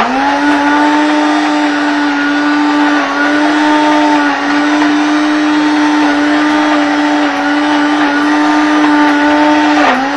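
Electric hand blender whipping cream in a bowl, its motor running steadily at high speed, the pitch dipping briefly a few times.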